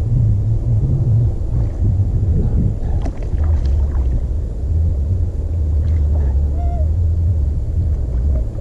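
Bass boat under way on the water: a steady low rumble from the motor and hull, with a faint short chirp about two-thirds of the way in.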